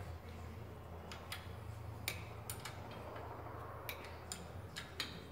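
Faint, irregular metallic clicks and taps of a wrench on a nut being run onto a generator mounting bolt, about nine over the few seconds, over a steady low hum.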